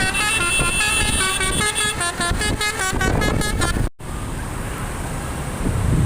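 Bus 'telolet' multi-tone air horn playing a rapid tune of changing notes, which cuts off abruptly about four seconds in. After that, a steady rumble of engine and road noise.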